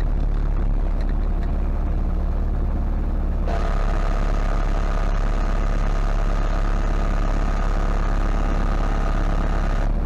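MTZ-80 tractor's four-cylinder D-240 diesel engine running steadily, heard from inside the cab. About three and a half seconds in, a steady whine joins it.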